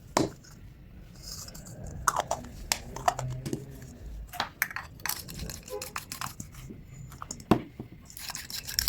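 Close-up handling of small objects: a string of sharp, irregular clicks and taps with rustling and scraping in between, the loudest clicks about a quarter second in, about two seconds in and near the end.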